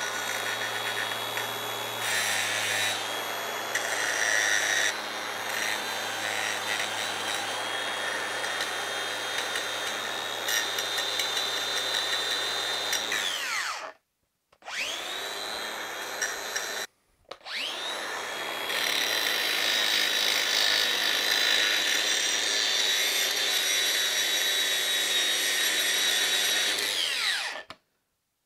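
Angle grinder with a grinding wheel grinding down the weld beads around bolt heads on steel tube, smoothing them for another weld. A steady high motor whine sits over the rasp of the wheel on the metal. It winds down about 13 seconds in, spins up again twice after short breaks, and winds down near the end.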